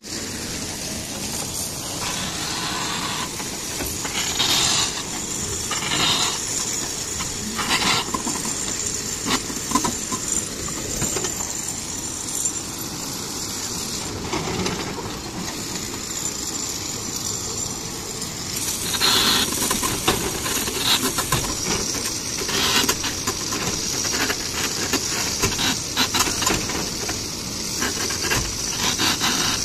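Marble quarry machinery running: a steady hiss with irregular knocks and clanks throughout.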